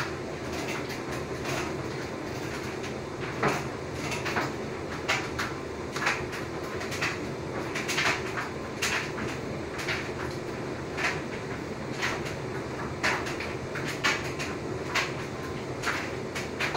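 LG front-loading washing machine running a wash cycle: the drum motor hums steadily while wet laundry tumbles, dropping with a soft knock about once a second.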